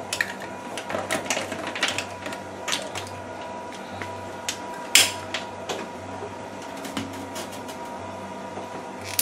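Plastic tubing lines and fittings clicking and rattling as they are clipped onto a hemodialysis machine, a string of short irregular clicks with a sharper one about five seconds in. A steady hum runs underneath.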